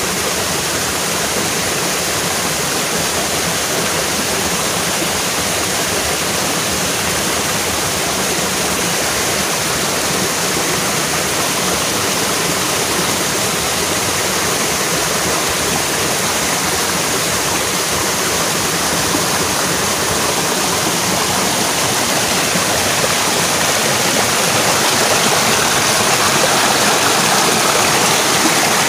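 Small waterfall and stream rushing steadily, growing a little louder near the end.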